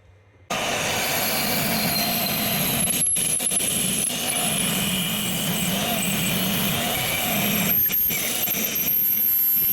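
Angle grinder cutting a patch out of scrap sheet steel: a steady, loud grinding with a high whine, briefly easing off twice.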